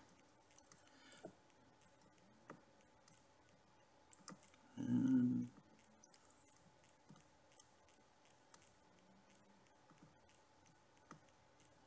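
Faint, scattered light clicks and ticks as a chisel-tip soldering iron and solder wire work the pins of a surface-mount chip. A brief low vocal murmur comes about five seconds in.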